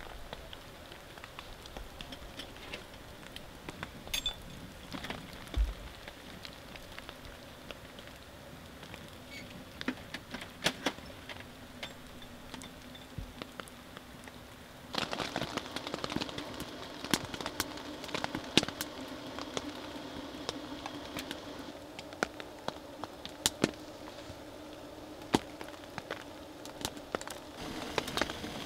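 Wood crackling and popping in a small titanium tent wood stove over a steady hiss. About halfway through the hiss gets louder and the pops come more often.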